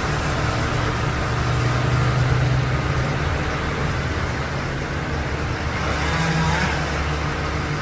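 A large engine running steadily at an even pace.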